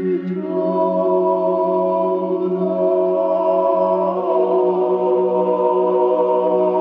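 Droning, chant-like music: sustained held notes over a steady low drone, the upper notes moving to new pitches just after the start and again about four seconds in.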